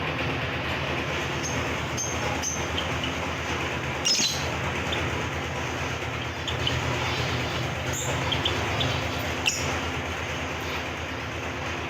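Cage finches giving short, scattered chirps over a steady mechanical rumble-and-hum background.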